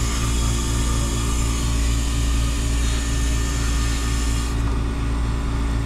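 Hoshizaki commercial cube ice maker running in its harvest cycle, hot gas being sent through the evaporator to release the ice: a steady machine hum with a strong low drone and a pulsing low tone. A faint high hiss drops away near the end.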